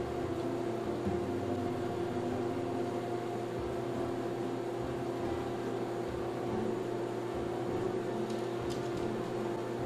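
Steady mechanical hum of a room appliance, a constant drone with a few held tones over a light hiss.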